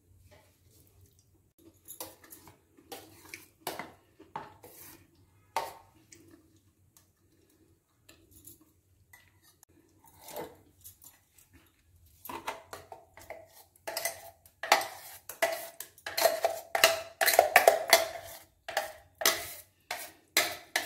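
Metal spoon knocking and scraping against a stainless-steel mixer jar as thick jackfruit puree is scraped out into a glass bowl. A few scattered clinks early, then, after a quiet pause, a rapid run of knocks and scrapes that is loudest toward the end.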